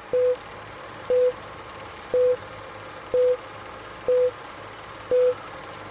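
Film-leader countdown beeps: a short, mid-pitched beep once a second, each starting with a click, six in all, over a steady hiss and low hum.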